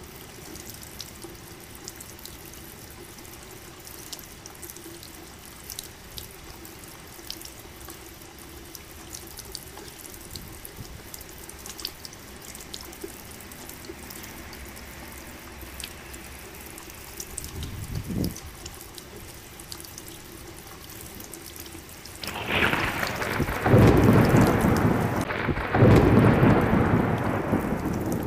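Steady rain falling, with scattered close drips. A brief low rumble comes about two-thirds of the way in, and near the end a loud thunder roll breaks in, swelling twice.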